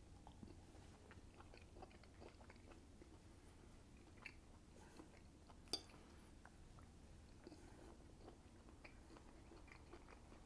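Faint chewing and biting through a mouthful of beef and vegetable stir fry, with small crunches. A single sharper click about six seconds in.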